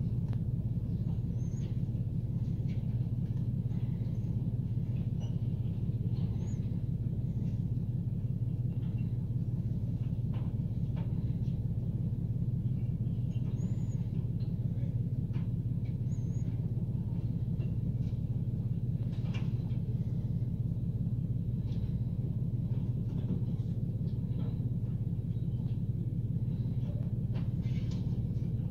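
Steady low rumble of a Mercedes-Benz garbage truck's engine driving its Faun Rotopress body while bins are lifted and tipped, heard from inside a car, with faint clanks and short high squeaks.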